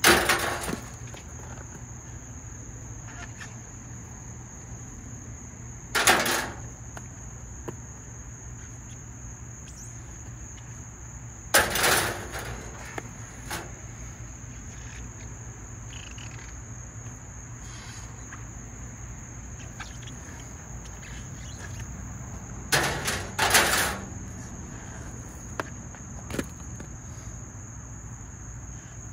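Sharp clatters of scrap copper pipe being handled: one at the start, one about six seconds in, one about twelve seconds in and two in quick succession near the end, each ringing briefly. Under them runs a steady high-pitched drone of insects.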